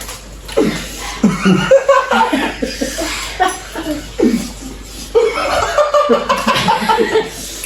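People laughing and chuckling in short, repeated bursts.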